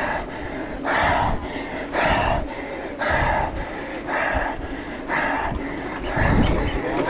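A mountain-bike racer breathing hard, with heavy breaths in a steady rhythm of about one a second, over a low rumble.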